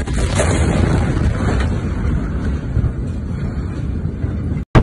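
Loud, steady rumbling roar with wind buffeting a phone's microphone as the blast wave of the Beirut port explosion sweeps over.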